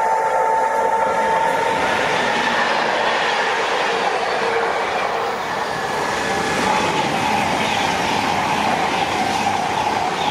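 Trains passing at a station: steady tones from an approaching diesel freight locomotive for the first couple of seconds. Then the rushing, clattering noise of a Pendolino electric express train going by close at speed, wheels on the rails.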